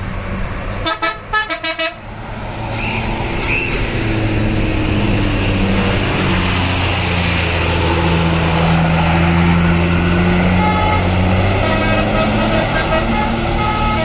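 Tour bus's telolet basuri musical horn: a quick run of short toots about a second in, then low horn notes stepping from pitch to pitch over the bus running close by, and more short, higher toots near the end.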